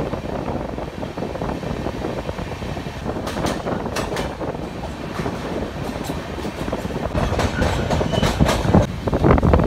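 Passenger train running through a tunnel, heard from an open coach doorway: a steady rumble with the wheels clacking over rail joints from a few seconds in. It grows louder near the end as the coach comes out of the tunnel.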